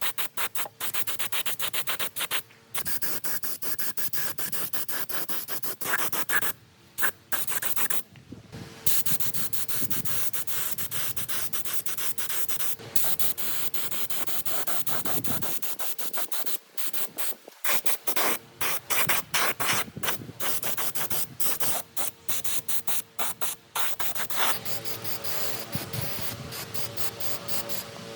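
Hand sanding of metal: rapid, regular back-and-forth scraping strokes that pause briefly a little past the middle. Near the end it gives way to a smoother, steadier hiss with a faint hum.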